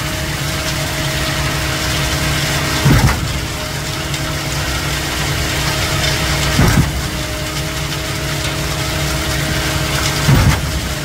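Concrete boom pump truck's diesel engine running steadily under pumping load, with a heavy knock about every three and a half seconds, three times, as the pump's cylinders change stroke.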